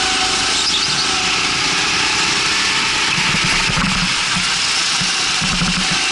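Rental go-kart engine running under way, steady in level, its pitch drifting slightly over a broad hiss.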